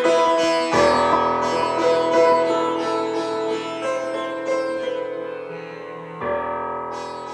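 Background music on a plucked string instrument over a sustained drone, with quick repeated plucks and fresh low notes struck twice; the music fades gradually in the second half.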